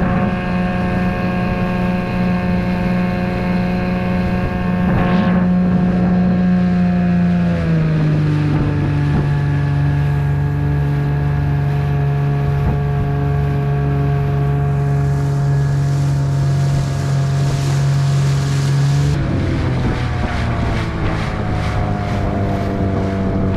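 6 hp Evinrude outboard motor running under way, steady. Its pitch drops about a third of the way in as it slows, then picks up again a few seconds before the end. Wind on the microphone.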